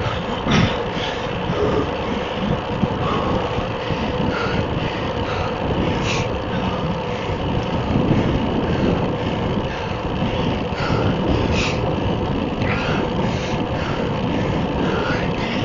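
Steady road, wind and engine noise from the moving vehicle that carries the camera, with a few brief knocks.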